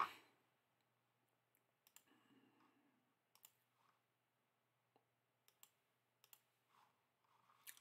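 Near silence broken by a few short clicks of a computer mouse, one sharper click at the very start and fainter ones scattered after it.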